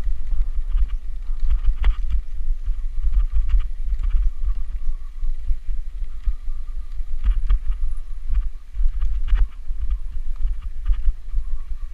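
Wind buffeting the microphone of a camera on a mountain bike descending over rough grass, with irregular knocks and rattles from the bike as it bumps over the uneven ground.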